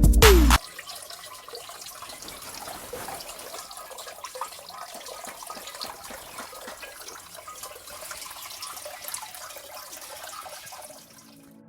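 Running water trickling and splashing steadily, after background music cuts off about half a second in.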